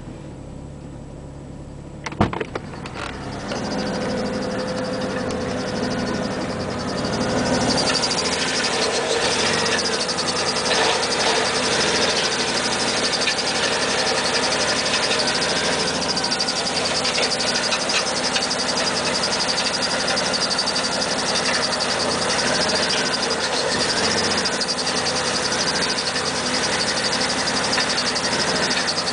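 Car engine idling with the automatic transmission in Drive and the brake held, picked up close to the underside of the car. A sharp click about two seconds in as the door is opened, then the running noise grows louder and fuller and stays steady. The owner suspects a noise from the transmission, but the engine noise covers it.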